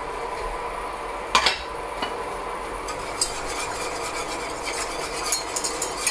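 Wire whisk stirring a cake-glaze mix in a pot of hot water, the whisk clicking against the pot, with quick clicks from about halfway in. A steady hiss runs underneath.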